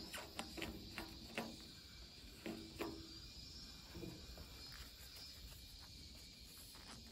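Faint, irregular light clicks and taps over a steady faint hiss. They are bunched in the first few seconds with a few more around the middle, handling noise of a gloved hand and tool on a steel body panel.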